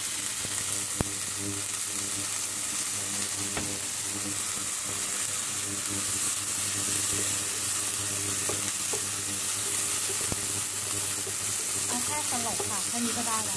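Bean sprouts sizzling in hot oil in a frying pan while a spatula stirs them, with a few sharp taps of the spatula against the pan. A steady low hum runs underneath.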